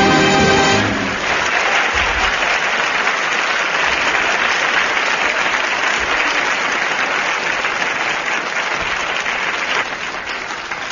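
A band's final held chord cuts off about a second in, followed by a studio audience applauding, which thins out near the end.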